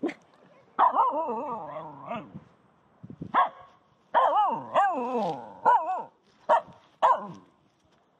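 Excited Finnish Spitz barking, or 'talking': two long calls that waver up and down in pitch, the first about a second in and the second just past the middle. Between and after them come four short barks.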